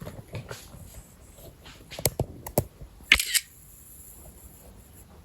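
A few faint sharp clicks, then a brief louder rustle a little after three seconds in.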